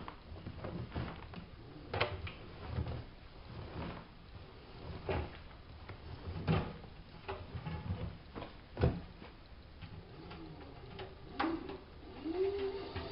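Hanseatic HWM814A3D front-loading washing machine with its drum turning slowly, the laundry tumbling and dropping inside with irregular soft thuds and knocks. Near the end a motor tone starts, rising and then gliding down.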